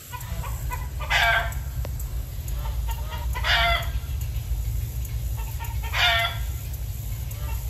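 Farmyard poultry calling three times, short calls about two and a half seconds apart, over a steady low rumble.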